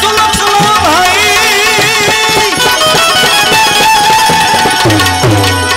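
Instrumental interlude of Gujarati santvani devotional music: tabla playing steadily with low bass-drum notes that bend in pitch, under a high melody with a wavering line.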